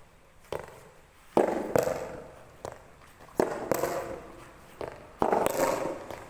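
Soft tennis rubber ball struck by rackets and bouncing on the court: a string of sharp pops at irregular intervals, each with a short fading tail.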